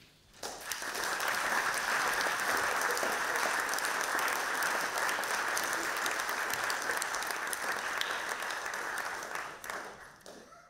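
Audience applauding: the clapping swells within the first second, holds steady, and dies away near the end.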